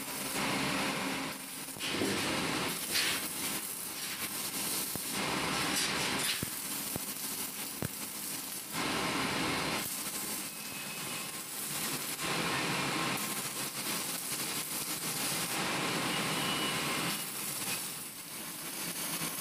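Electric arc welding on steel fence bars: a steady crackling hiss from the arc, coming in runs of a few seconds broken by short pauses.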